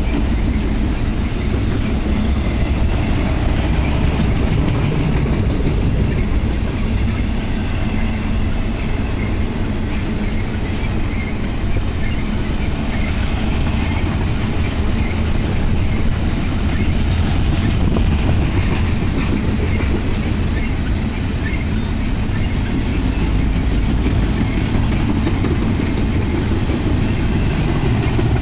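Intermodal freight train's container well cars rolling past, a loud, steady rumble of steel wheels on rail.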